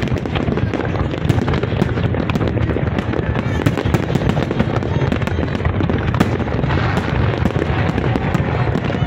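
Large fireworks display: a continuous barrage of shell bursts and crackling, many sharp cracks a second over a steady rumble.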